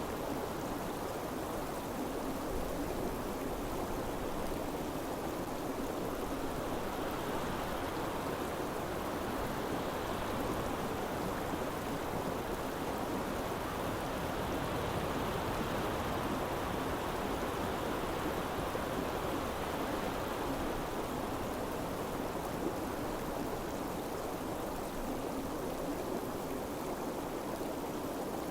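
Snow-bordered mountain stream flowing, a steady, even rush of water with no breaks.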